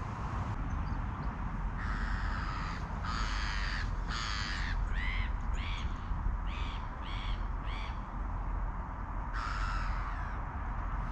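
A crow cawing: a run of harsh calls, the first few longer, then shorter ones about two a second, and one more caw near the end, over a steady low rumble.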